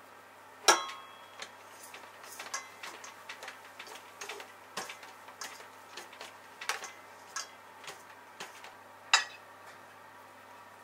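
A kitchen utensil knocking and scraping against a stainless steel mixing bowl as flour is folded into sponge cake batter. A sharp ringing clink comes about a second in, then a run of light taps, then another sharp clink near the end.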